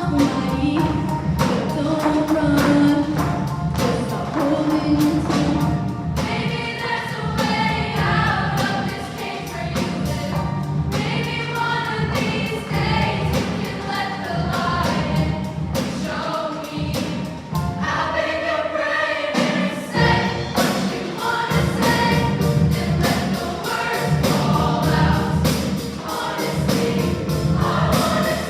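Junior high show choir singing with musical accompaniment.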